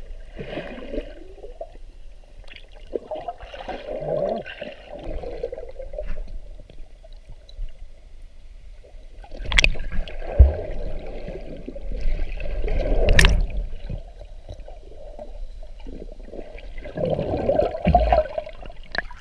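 Muffled underwater sloshing and gurgling of sea water, heard with a GoPro submerged, swelling and fading as the camera moves. Two sharp clicks come midway, about three and a half seconds apart.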